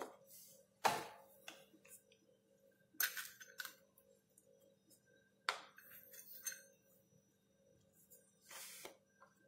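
A few faint clinks and taps, a couple of seconds apart, as chopped dry fruit is picked from a steel bowl and sprinkled onto barfi in a tray, over a faint steady hum.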